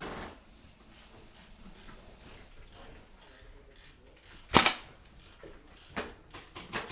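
Airsoft gunfire: faint clicks, then one loud sharp shot about two-thirds of the way in, a second, weaker shot about a second later, and a run of quicker shots starting just before the end.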